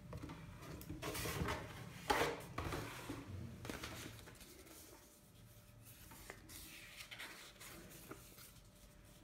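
Rustling and handling of packaging: a cardboard box flap, paper leaflets and a plastic air-cushion wrap being moved by hand. It is loudest in the first few seconds, then turns into softer rustles and light taps.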